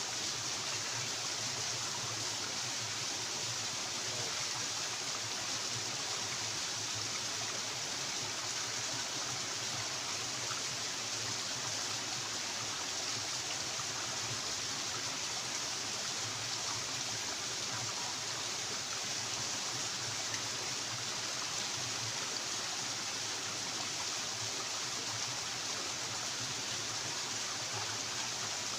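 Flowing stream water rushing steadily with an unchanging hiss.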